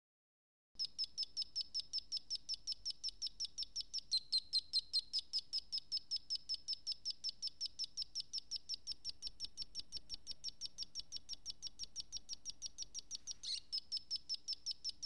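Solar sound module, a single-chip synth running off a small solar cell, chirping through its piezo speaker: a rapid, even stream of short high chirps, about five a second, starting about a second in.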